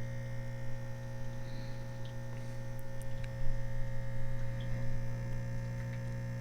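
Steady low electrical mains hum, with a few faint clicks about halfway through.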